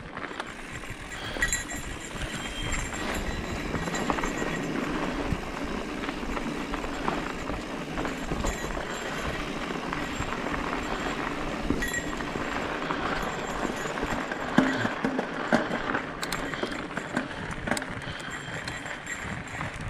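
Mountain bike riding on a dirt singletrack: a steady rush of tyre and wind noise, with small clicks and rattles from the bike as it goes over bumps.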